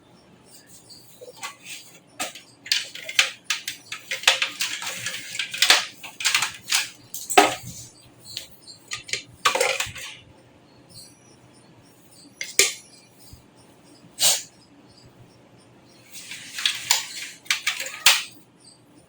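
Hard computer parts being handled: clicks, knocks, rattling and scraping come in two busy stretches, at the start and near the end, with single sharp knocks in between.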